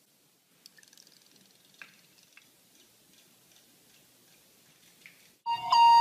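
Faint light ticks and small water sounds from a bathroom sink. Then, a little before the end, a sudden loud steady tone with several pitches sounding together.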